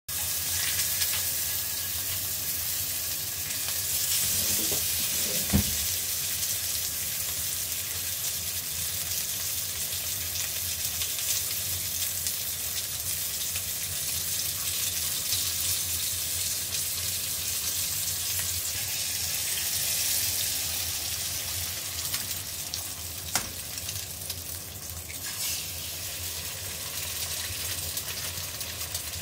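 Thick slices of meat sizzling steadily in hot oil in a cast iron skillet, with a couple of light knocks.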